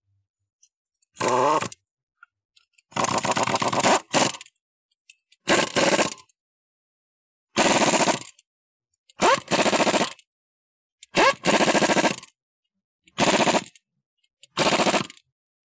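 Ingersoll-Rand 232TGSL half-inch air impact wrench hammering in about eight short bursts, tightening wheel lug nuts through a torque-stick extension that limits them to about 90 foot-pounds.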